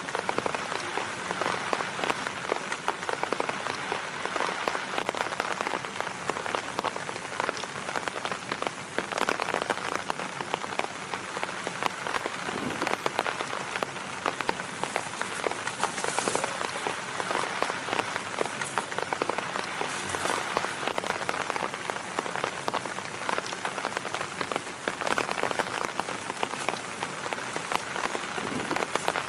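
Steady rain falling on a tarp shelter: a dense, unbroken patter of countless drops.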